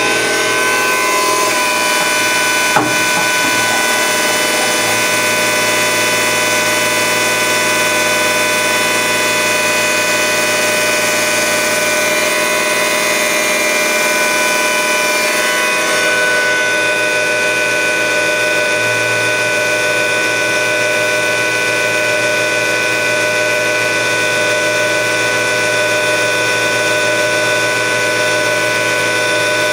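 Hardinge CNC lathe running, a steady whine of several tones held throughout, with a single click about three seconds in.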